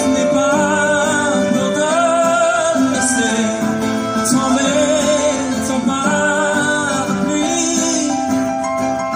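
Live folk band music: an acoustic guitar strums chords under a held, wavering melody line.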